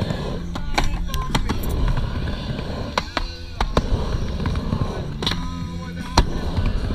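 Skateboard wheels rolling across a mini ramp with a steady low rumble, broken several times by sharp clacks as the trucks and board strike the metal coping and ramp surface.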